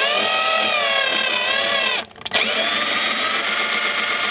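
Cordless drill with a 1/4-inch bit boring a hole through a plastic drain pipe: the motor whines up to speed and runs steadily, stops briefly about two seconds in, then runs again.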